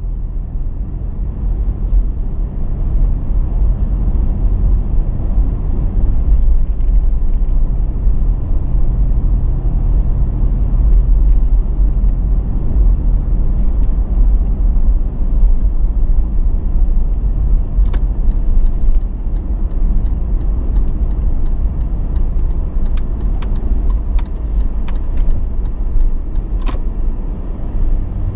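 Steady low road and engine rumble of a Toyota Land Cruiser Prado being driven, fading in over the first couple of seconds. Scattered sharp ticks come in during the last third.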